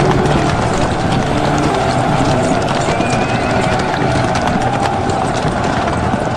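Battle sound effect: many horses' hooves clattering in a dense, continuous din.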